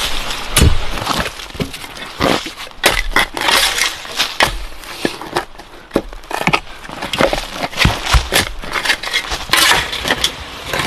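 A rapid, irregular series of sharp clicks and knocks over a steady hiss.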